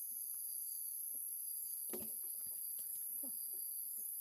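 Steady high-pitched insect drone, typical of cicadas or crickets in woodland, with a few faint knocks and one sharper knock about two seconds in.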